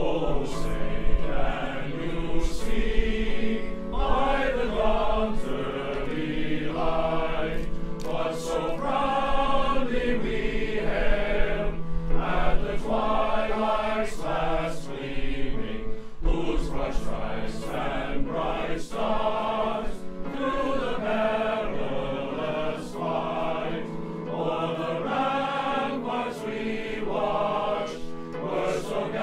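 Men's glee club singing an anthem in harmony, holding long notes, with electronic keyboard accompaniment.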